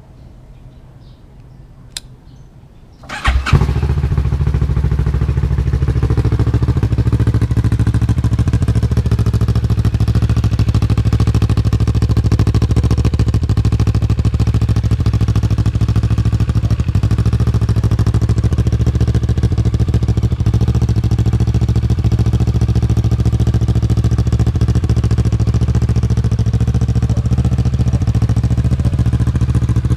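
A single click, then about three seconds in the Kawasaki Ninja 650's parallel-twin, fitted with an Akrapovic titanium full exhaust, starts: a brief crank and catch. It then idles steadily with a low exhaust rumble.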